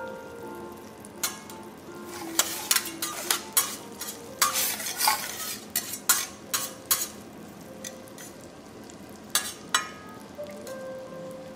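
Food sizzling on a teppanyaki iron griddle, with the sharp clicks and scrapes of metal spatulas working on the plate; the sizzle swells briefly near the middle. Soft background music underneath.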